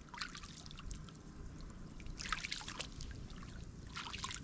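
Splashing and sloshing in shallow, muddy rice-paddy water as a person wades barefoot and reaches into it by hand, with bursts of splashing about two seconds in and again near the end.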